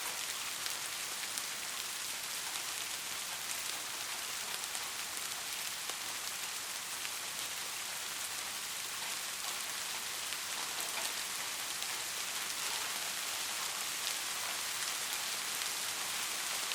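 Steady soft rain falling, an even hiss with scattered ticks of individual drops.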